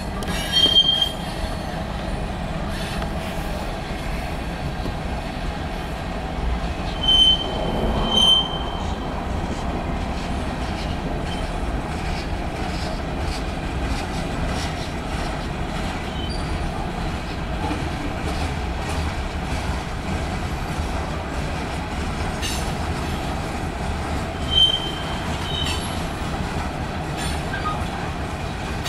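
Freight train of hopper and tank cars rolling past: a steady rumble and clatter of wheels on rail, broken by short high-pitched squeals about a second in, twice around seven to eight seconds, and once near the end.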